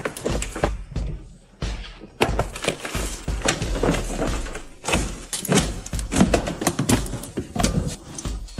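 Music with frequent sharp, irregular percussive hits.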